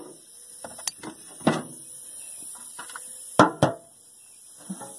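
Metal engine parts knocking and clanking as they are handled during an engine teardown. There are a few sharp knocks, with the loudest two close together about three and a half seconds in.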